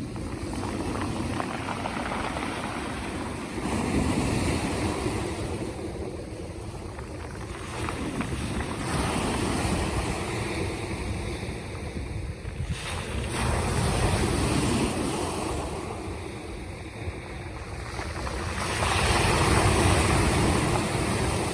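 Black Sea waves breaking and washing in, the noise swelling and fading in slow surges about every five seconds, with wind buffeting the microphone.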